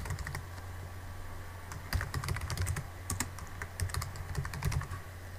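Typing on a computer keyboard: quick runs of keystrokes with short pauses between them, over a steady low hum.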